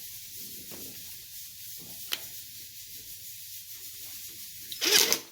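Hand-work noises as a small bracket is screwed onto an amplifier expander: a steady hiss, a sharp click about two seconds in, and a short loud scrape near the end.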